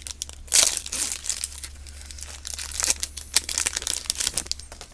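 A trading-card pack's plastic wrapper being torn open and crinkled, with a run of sharp crackles that are loudest about half a second in.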